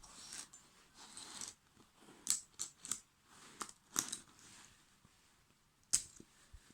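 Metal multi-tool parts handled and worked on: a string of sharp clicks, the loudest near the end, over soft rustling and scraping.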